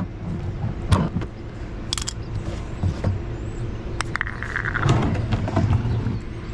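Handling noises under a vehicle: sharp clicks and knocks about once a second, with a scraping sound about four seconds in, as a drain pan and tools are moved into place. A steady low hum runs underneath.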